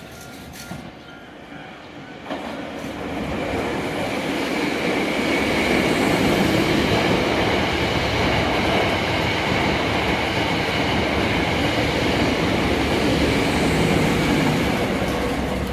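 Hankyu Takarazuka Line electric train running by on the rails. Its noise builds over a few seconds, holds loud and steady, then begins to ease near the end.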